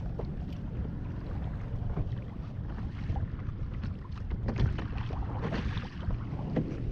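Wind buffeting the microphone over water moving around a kayak, with scattered small knocks and splashes.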